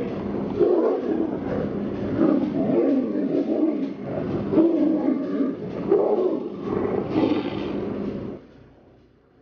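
Two tigers roaring as they fight. The sound is continuous and stops about eight seconds in.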